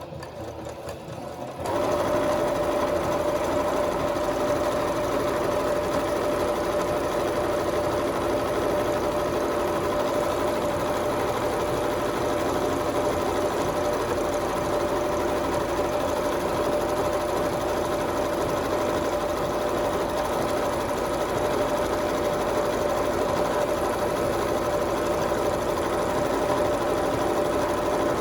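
Electric sewing machine running at a steady speed, stitching a zip into a cushion cover; it starts up about two seconds in.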